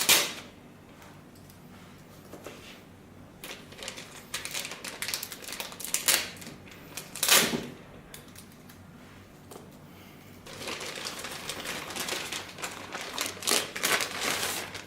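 Unboxing handling noise: packaging and parts being moved about, with scattered clicks and rustling, a sharp knock about seven seconds in, and a longer spell of rustling in the last few seconds.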